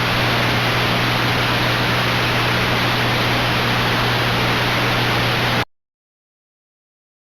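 Steady radio static hiss with a low hum underneath. It cuts off abruptly about five and a half seconds in, leaving dead silence.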